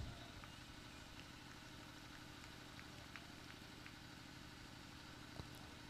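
Near silence: a faint steady low hum, with a few faint ticks and one small click about five seconds in.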